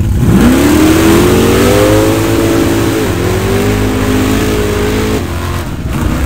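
Mud-drag 4x4 truck launching at full throttle down the mud pit, its engine pitch climbing steeply, dipping once about three seconds in, then climbing again. The engine drops away about five seconds in.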